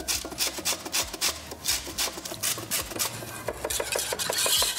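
Lemon zest being grated on a fine metal rasp grater, in quick repeated scraping strokes of about three or four a second. A louder steady hiss comes near the end.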